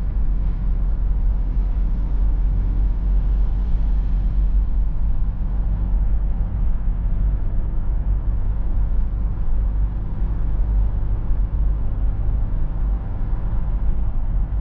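Cabin noise of a BMW E46 320d on the move: a steady low drone from its 150 hp four-cylinder diesel engine, mixed with tyre and road noise.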